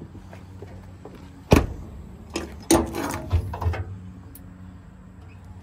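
A pickup truck's cab door slams shut about a second and a half in, then a metal storage box's latch and lid clunk and rattle as it is opened. A steady low hum runs underneath.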